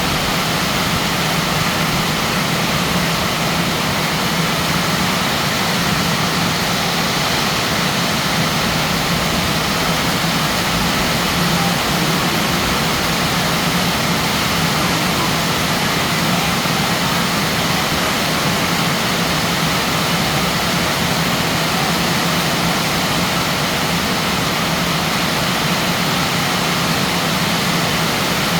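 Heavy rain pouring down in a storm, a loud steady rushing noise with no letup.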